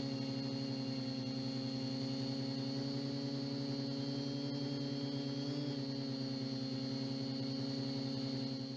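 MJX Bugs 2W quadcopter's brushless motors and propellers hovering, a steady pitched hum heard through the GoPro mounted on the drone, with a brief small rise in pitch a little past halfway.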